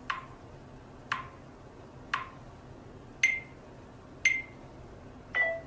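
Smartphone camera countdown timer sounding six short beeps about a second apart, the later ones higher in pitch, counting down to the start of recording.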